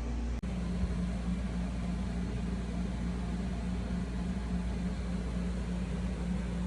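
Steady low mechanical hum with a faint held tone, like room machinery running; it cuts out for an instant just under half a second in, then carries on unchanged.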